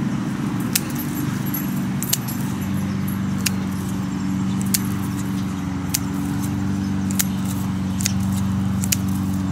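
Scissors snipping off spent red hot poker flower stalks: about eight short sharp clicks, roughly one a second. Under them runs a steady low mechanical hum.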